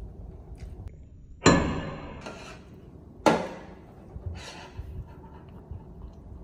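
Two sharp knocks of hard kitchenware about two seconds apart, the first with a brief high ring.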